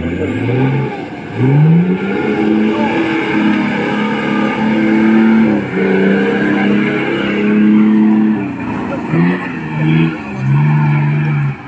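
Off-road 4x4 truck engine revving hard under load in a mud pit, the pitch climbing, holding high and dropping back again and again as the driver works the throttle.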